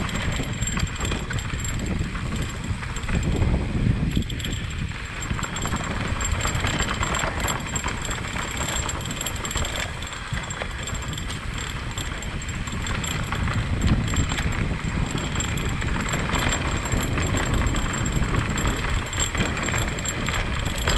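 Steady rumble and rattling of a ride over a rough, bumpy trail, with jolts that come and go.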